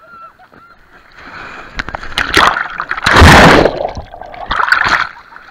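Sea surf washing over an action camera at water level: rushing, splashing water on the microphone, loudest about three seconds in as the camera goes under, with another splash near the end.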